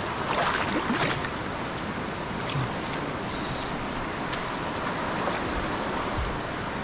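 Rushing water of a swollen, flood-high mountain creek, a steady rush, with a couple of brief splashes in the first second.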